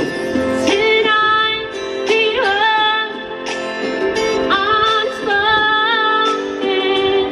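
A woman singing a slow karaoke song over a guitar backing track, holding two long notes with a wavering pitch.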